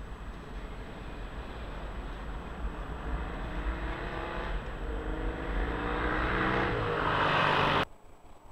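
Milan articulated 4600-series tram passing close by as it pulls away, its wheels rumbling on the rails under a whine that rises in pitch as it speeds up. The sound builds to its loudest as the car goes by, then cuts off abruptly near the end.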